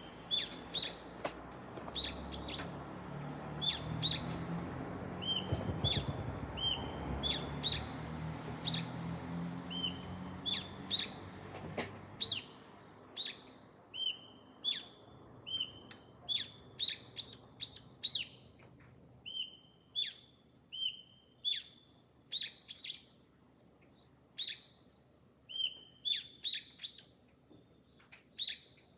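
Small garden birds calling, short sharp chirps repeated about once or twice a second, with a low rumble underneath for the first twelve seconds or so that then fades away.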